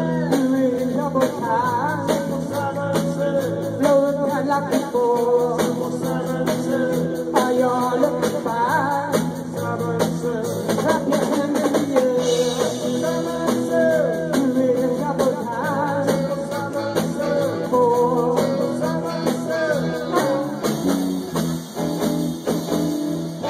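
Live rock band playing a song: electric guitar, bass and drum kit with a sung lead line.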